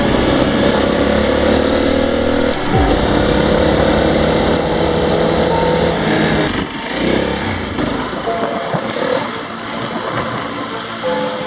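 Honda CRF250L's single-cylinder engine running while the motorcycle is ridden, with a short drop in pitch near three seconds in. About six and a half seconds in the sound becomes quieter and more uneven.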